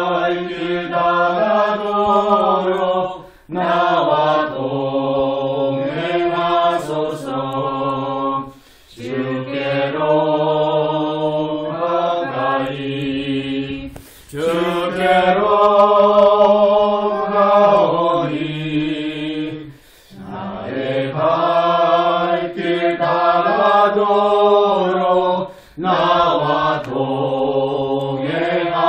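A small group of voices singing together unaccompanied, in long held phrases with a short breath pause between each, six phrases in all.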